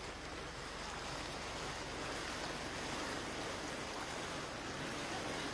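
Steady rushing noise of muddy floodwater flowing fast along a street after heavy rain.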